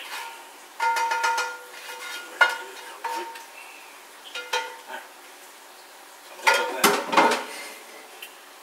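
Cooking pan knocking and scraping against a stainless steel colander in a steel sink while cooked ground beef is drained, with short metallic ringing after the hits. A flurry of clanks comes about a second in, a sharp single knock a little later, and the loudest clatter near the end.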